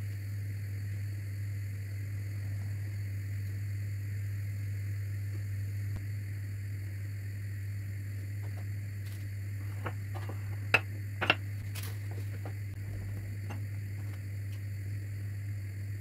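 Steady low hum in a kitchen, with light handling sounds of dough balls being dipped in sesame and set on a baking tray. A couple of sharp clicks or taps come about eleven seconds in.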